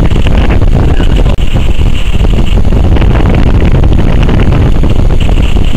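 Strong wind buffeting the camera microphone: a loud, steady low rumble.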